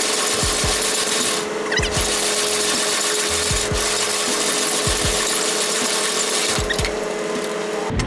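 Semi-trailer landing gear being hand-cranked up after coupling: a steady mechanical grinding and rattling from the crank and its gearbox, with a steady hum underneath.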